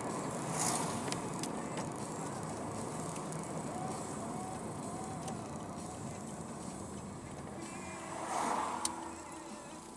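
Toyota car squeaking: short squeaks and sharp ticks over a steady background of vehicle noise, with two louder swells near the start and near the end.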